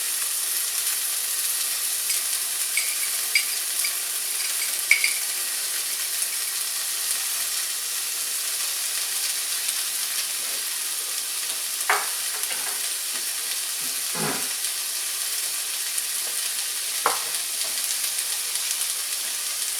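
Onions, pickled jalapenos and roasted red peppers frying with a steady high sizzle, with a few sharp clicks of a utensil against the pan now and then.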